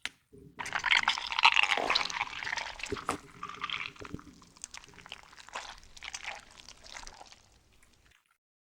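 Slime being poured and handled, a wet, sticky crackling with many small pops and clicks. It is loudest over the first few seconds, then thins out and stops abruptly near the end.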